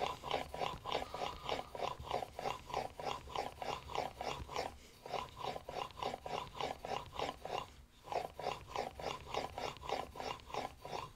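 Smoothing-plane blade in a honing guide stroked rapidly back and forth on a wet 8000-grit waterstone, a rhythmic rasping of about three to four strokes a second with two brief pauses. The blade is being honed and polished with extra pressure on its outside edges to put a slight camber on the cutting edge.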